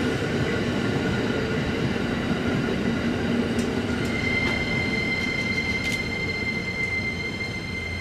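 E231 series electric train passing close by, a steady rumble of wheels on rails. About four seconds in, a steady high squeal starts and holds, with a few faint sharp clicks.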